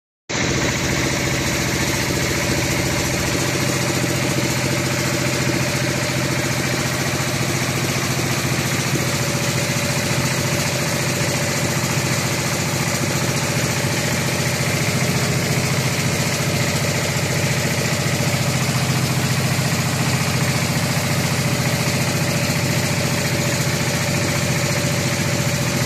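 Mortar-spraying repair machine running steadily, a continuous engine drone.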